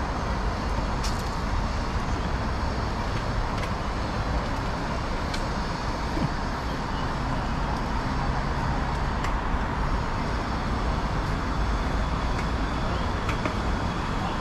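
Steady city traffic noise, a continuous low rumble of road vehicles, with a few faint clicks scattered through it.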